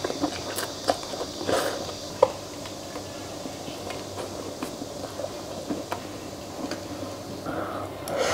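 A person eating noodles with chopsticks: wet slurps and chewing, with a few sharp clicks from chopsticks against a steel tray, the sharpest about two seconds in.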